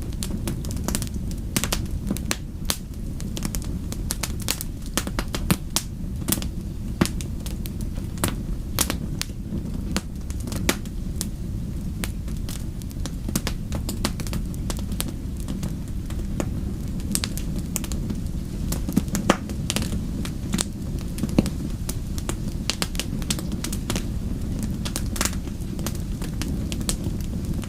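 Wood fire in a fireplace crackling and popping irregularly over a steady low rumble of the flames.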